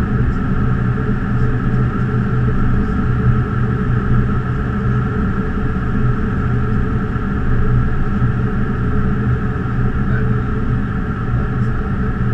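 Steady cockpit noise of an Embraer E190 jet on approach: airflow rushing past the flight deck, with a constant low hum underneath.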